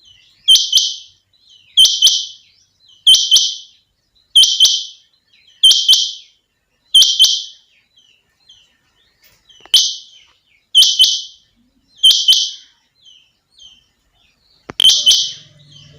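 Female rain quail calling: a short, high, two-part call repeated about every second and a quarter, about ten times, with a longer pause around the middle.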